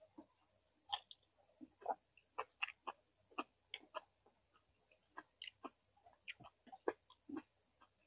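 Close-up eating sounds of a person chewing roasted vegetables: short, irregular mouth clicks and soft crunches, a few each second.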